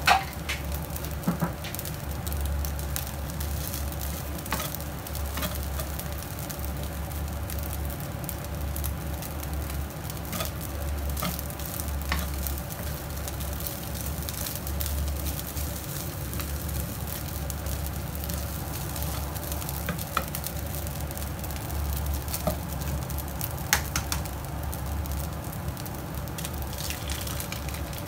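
Rice frying in a pan, stirred and turned with a wooden spatula: a steady sizzle with scattered clicks and scrapes of the spatula against the pan, over a low hum.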